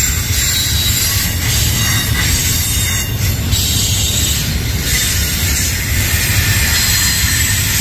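Double-stack intermodal well cars of a freight train rolling past, with a steady rumble and rattle of steel wheels on the rails.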